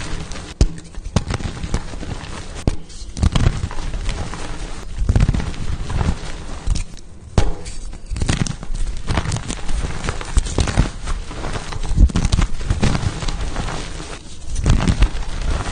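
Pasted (reformed) gym chalk blocks being crushed: a run of crisp crunches and cracks as the chalk breaks and crumbles, in several bursts with short pauses between.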